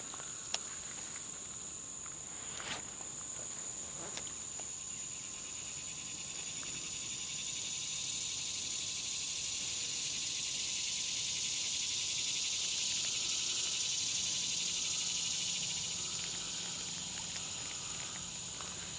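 Summer insect chorus: a steady high-pitched trill throughout, with a second, lower buzzing chorus swelling in about a third of the way through, peaking and fading before the end. Three faint clicks come in the first few seconds.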